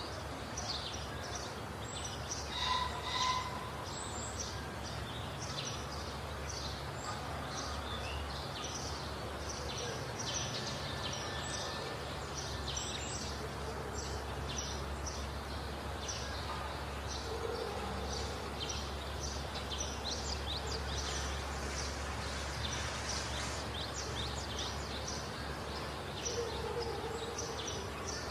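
Rural outdoor ambience: small birds chirping many short high notes throughout, over a steady low rumble of background noise.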